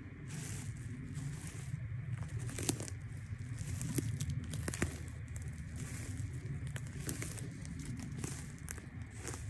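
Footsteps crunching and crackling irregularly through dry pine needles and brittle clumps of reindeer lichen, over a steady low rumble.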